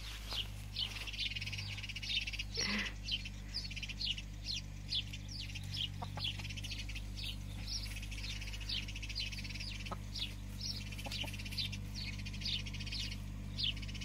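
Young chickens, about nine weeks old, peeping: a steady run of short, high, falling cheeps, about two or three a second, with one fuller call about three seconds in.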